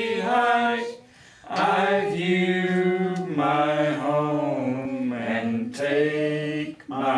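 A man singing unaccompanied, slow and with long held notes, pausing for breath about a second in and again briefly near the end.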